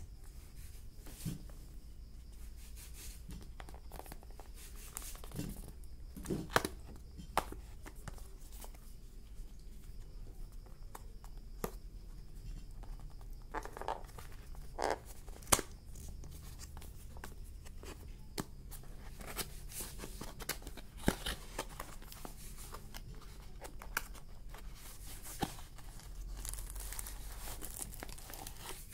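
Paperboard retail box and its card insert handled and opened by hand: scattered taps, clicks and rustling of card and paper.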